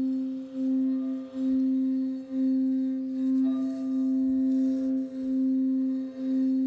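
Frosted quartz crystal singing bowl tuned to C (Do), its rim rubbed with a suede-covered mallet, giving one low, sustained tone that swells and dips about once a second. A fainter, higher tone joins about halfway through.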